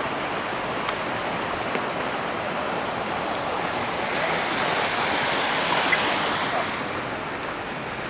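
A steady, even rushing noise with no clear pitch, swelling slightly a little past halfway and easing off near the end.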